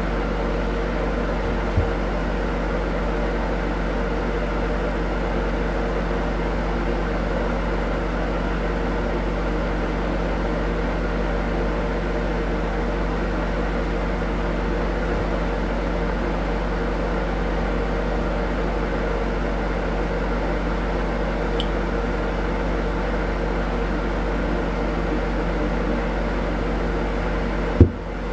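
Steady mechanical hum with a low drone, unchanging throughout, as from a fan or motor in a small room. A small click about two seconds in and a short, louder knock near the end.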